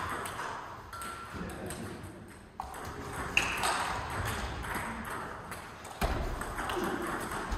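Table tennis ball striking bats and table: a handful of sharp, irregularly spaced clicks, the loudest about three and a half seconds in.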